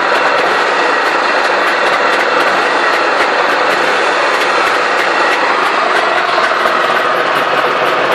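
Trabant P601's air-cooled two-cylinder two-stroke engine running steadily, with a busy rattly mechanical noise.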